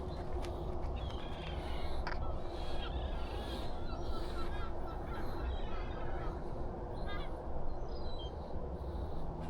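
Birds calling in a series of short repeated calls, densest in the middle, over a steady low rumble.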